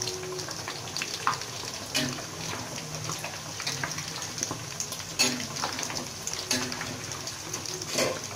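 Chicken pieces coated in grated galangal deep-frying in a stainless steel wok of hot oil, with a steady bubbling sizzle. The chicken is dark brown and nearly cooked. A metal utensil clinks and scrapes against the wok a few times, loudest near the end.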